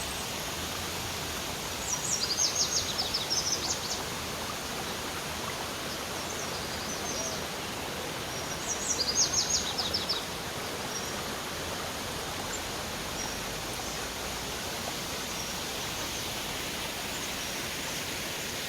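Steady rush of a waterfall, with a bird calling in quick trills of sharp, high notes twice, about two seconds in and again around nine seconds, and a few faint short high notes later.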